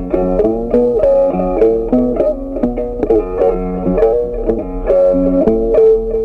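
Background music: an instrumental tune of quickly picked notes in a steady rhythm.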